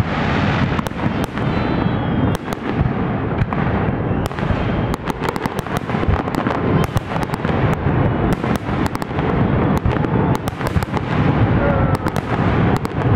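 Fireworks display in full barrage: aerial shells bursting in rapid succession, many sharp cracks and bangs a second over a continuous rumble of booms.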